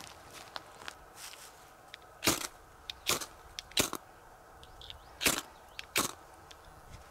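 Dry wood cracking: about five sharp cracks at uneven intervals, with a few lighter snaps between them.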